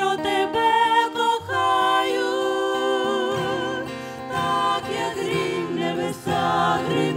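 Small group of women and a man singing a gospel worship song together in harmony, over acoustic guitar accompaniment.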